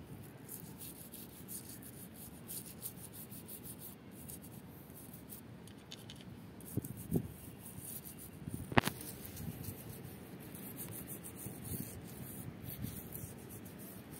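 Toothbrush bristles scrubbing a turtle's shell in quick rubbing strokes, with a few light knocks around seven seconds in and one sharp tap just before nine seconds.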